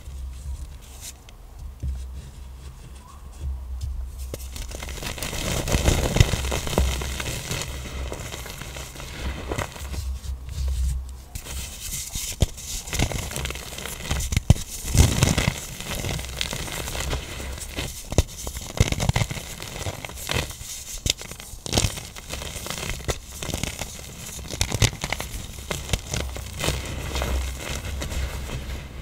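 Crushing of compressed black iron oxide powder blocks: a dense run of irregular crunches and crackles as the blocks break and crumble into powder. There are sharper cracks about six and fifteen seconds in.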